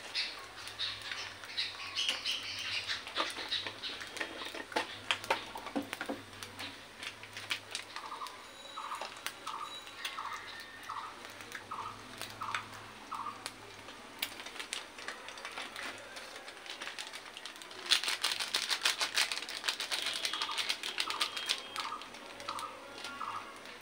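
Egg frying in ghee in a nonstick pan, the fat crackling and spitting in irregular sharp pops, growing denser and louder for a few seconds about three quarters of the way through. Through two stretches a short chirp-like note repeats about twice a second.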